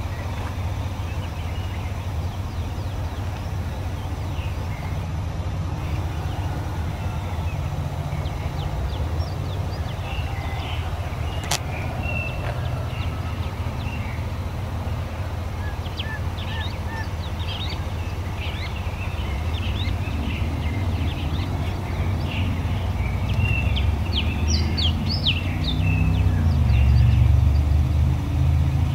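A vehicle engine running with a steady low rumble that grows louder near the end, while birds chirp on and off.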